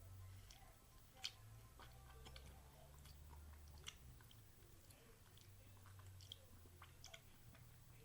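Faint chewing of a soft, chewy caramel candy (a Strawberry Smoothie Cow Tale), with small wet mouth clicks scattered through, the sharpest about a second in.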